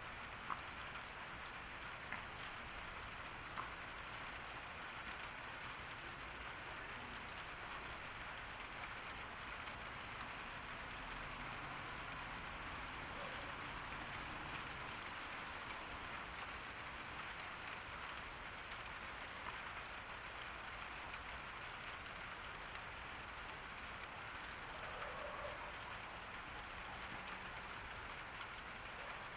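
Steady summer rain falling on a garden, an even hiss of drops, with a few sharper single drop taps in the first few seconds.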